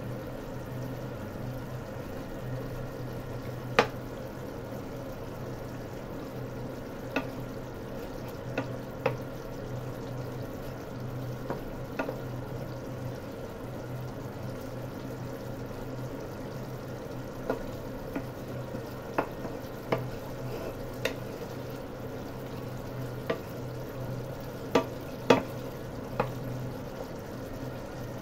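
Rui fish curry simmering in a pan on an induction cooker, with a steady low hum underneath. It is stirred with a wooden spatula, which knocks and taps against the pan at irregular moments, about fifteen times.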